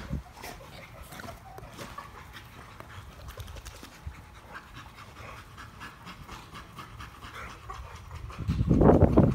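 Two American bully dogs panting as they play-wrestle. Near the end a much louder low rumbling noise comes in.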